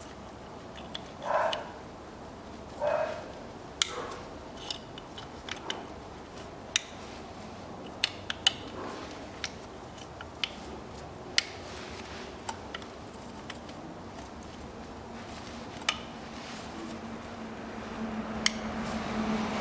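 Hands working plastic wiring-loom clips and connectors over a diesel engine: scattered sharp plastic clicks and taps, with two louder scraping rustles in the first few seconds. A low steady hum comes up near the end.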